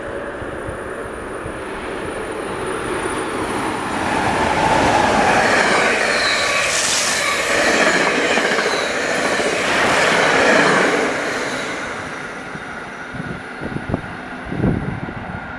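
NJ Transit push-pull train, an ALP-46 electric locomotive with Comet passenger cars, passing through at speed: a steady rush of wheels on rail that swells about three seconds in and fades after about eleven seconds. There is a brief high wheel squeal about seven seconds in, and wind buffets the microphone near the end.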